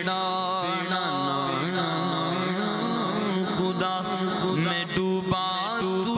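Male naat reciter singing an Urdu devotional kalam into a microphone, in long ornamented phrases with wavering, bending pitch.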